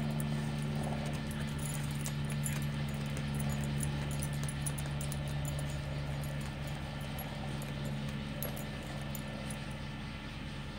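Dog digging in soil, its paws scratching at the earth in quick light scrapes, over a steady low hum.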